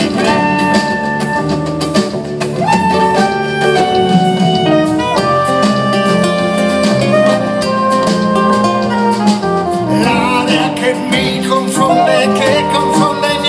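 Live band playing an instrumental passage of a jazzy Italian song: held melody notes on a reed instrument over acoustic guitar, double bass and drums. The playing gets busier and brighter about ten seconds in.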